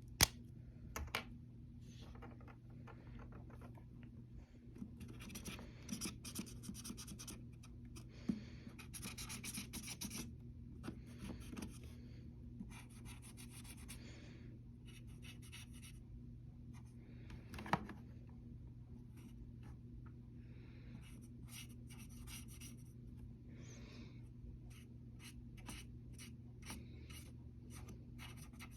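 Irregular short scratching and rubbing strokes, with a few sharp clicks, the loudest right at the start and another about eighteen seconds in, over a steady low hum.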